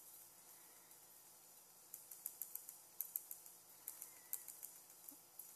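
Faint, irregular light taps and clicks of a stylus dabbing on a Wacom pen tablet, starting about two seconds in and coming several a second.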